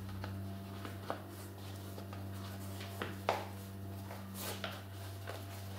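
Faint rustling and soft clicks of shoelaces being pulled through the eyelets and tied on a Superdry Skate Classic Low sneaker, with a short swish of the lace about four and a half seconds in. A steady low hum runs underneath.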